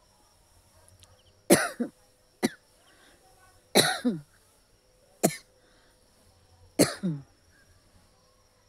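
A person coughing in five short, sharp bouts, some of them double coughs, spaced a second or so apart. The coughs are put on deliberately for a cough challenge.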